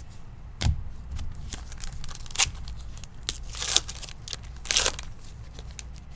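A trading card pack wrapper being torn open and crinkled: several short rips, with a sharp click just under a second in.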